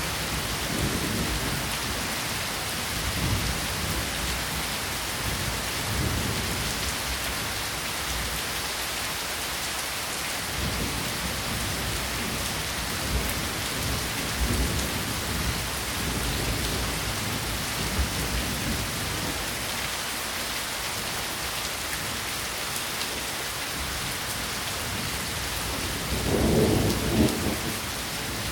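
Steady rainfall, an even hiss of rain falling on surfaces, recorded with a Zoom H1 handheld recorder. Several brief low-pitched swells rise out of it, the loudest a little before the end.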